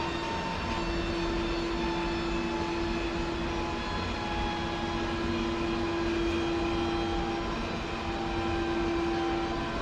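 Large church bells ringing close by in the bell tower: a sustained hum on one strong low note, with higher overtones that fade and come back.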